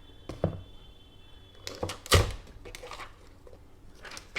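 Speaker packaging being opened and handled: a few knocks and thuds, the loudest about two seconds in.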